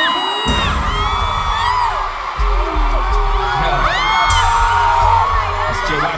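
Pop/hip-hop song intro: heavy bass with gliding, whooping high sounds over it and no lyrics yet. The bass drops out for about half a second at the start, then comes back in.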